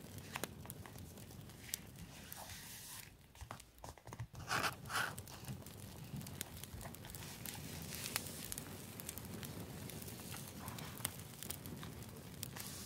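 Paper rustling and rubbing as fingers smooth a sticker down onto a journal page, with scattered light clicks and taps throughout. About four and a half seconds in comes a louder double rustle of paper.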